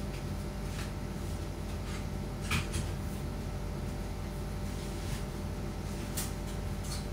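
Room tone of an empty room: a steady low hum with a few faint clicks and knocks, the most distinct pair about two and a half seconds in.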